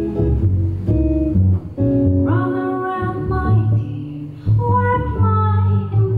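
Live jazz trio: an upright double bass plucked and an electric guitar playing, with a woman's singing voice coming in about two seconds in, breaking briefly, then going on.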